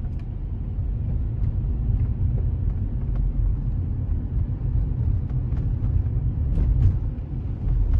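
Low, steady rumble of outdoor street noise, with a few faint ticks over it.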